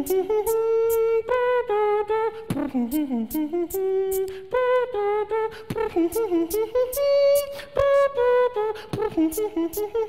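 Beatboxing by a single performer: sharp vocal clicks and percussive hits in a rhythm over a hummed melody that holds and glides between notes.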